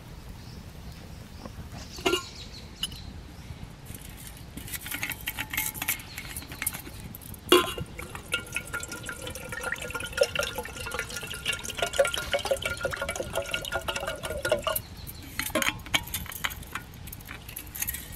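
Water poured from a steel bottle into a stainless steel kettle, filling it with a steady ringing splash for about six seconds. Sharp metal clinks come just before and just after the pour.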